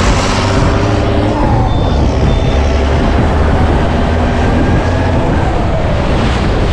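Boat engines running hard through the surf as the boat is launched off the beach, over a steady rush of water and wind, their pitch rising and falling with the revs. Two short high beeps sound about two seconds in.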